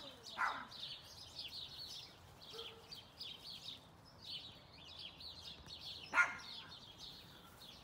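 Small birds chirping, a steady run of short, quick chirps. One short, louder sound stands out about six seconds in.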